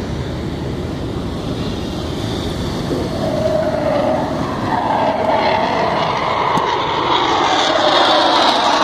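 Parade vehicles rumbling past, a vintage Land Rover and then a column of motorcycles. From about three seconds in, a roar of jet aircraft approaching overhead grows steadily louder toward the end.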